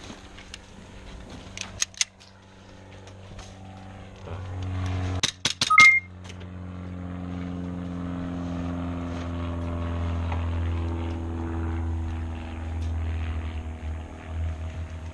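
A quick run of sharp cracks about five seconds in, typical of airsoft gun shots, with a couple of single clicks earlier, over a steady low mechanical hum that comes in about four seconds in and carries on.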